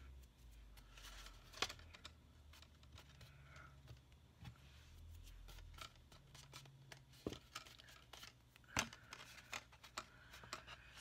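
Faint rustling and handling of stiff cardstock cutouts between the hands, with a few sharper clicks and taps as the paper pieces are pressed and moved.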